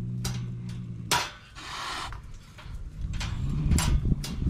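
Frightened cat trapped in a wire live trap growling low and steadily, then letting out a sharp spitting hiss about a second in. It growls again near the end with a few short spits: a defensive warning.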